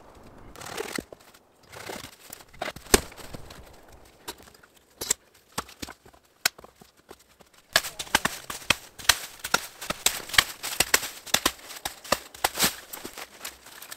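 Wooden poles knocking against each other as they are laid onto a lean-to frame, a few separate knocks. From about eight seconds in, a fast, dense run of sharp cracks and snaps as a hatchet chops and breaks spruce boughs.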